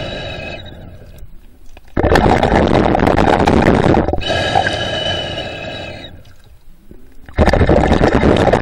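Underwater breathing of the swimmer holding the camera: loud, rushing breaths with a faint whistle, each starting suddenly and fading away, about one breath cycle every five to six seconds.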